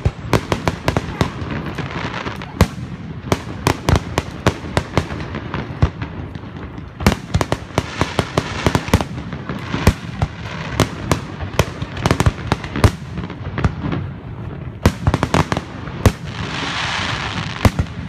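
Fireworks display: an irregular run of sharp bangs from aerial shells bursting, several a second, over a constant low rumble. A hissing crackle swells near the end.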